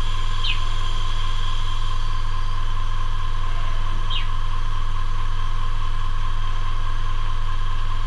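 Airbrush compressor running steadily, a low hum with a steady whine. Two short high chirps come about half a second and four seconds in.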